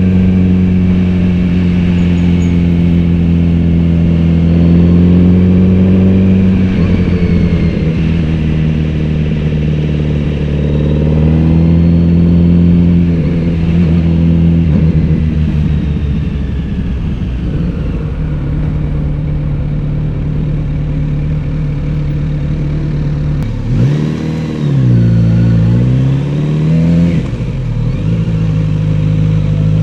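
Kawasaki Z900RS inline-four engine and exhaust, heard from the rider's seat while cruising at fairly steady revs. The pitch shifts a few times with throttle and gear changes. Near the end the revs drop and climb twice in quick succession.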